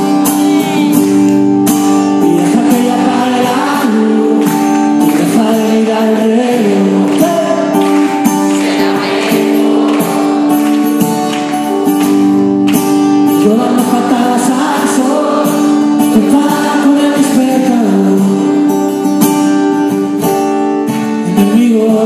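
Live rock band playing an instrumental passage of a song between sung verses: held chords and a wavering melody line over a steady beat with frequent drum hits.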